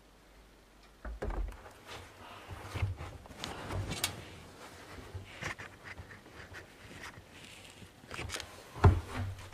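Irregular knocks, bumps and rustling of a person moving right next to the microphone, starting about a second in, with the loudest sharp thump near the end.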